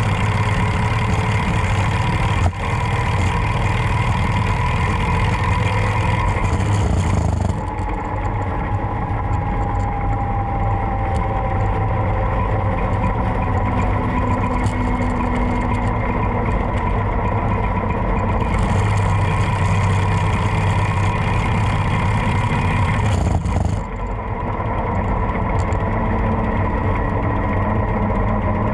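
Harley-Davidson Road Glide's V-twin engine running steadily under way, with wind and road noise on the helmet-mounted GoPro's microphone. The high rush of wind drops and comes back a couple of times.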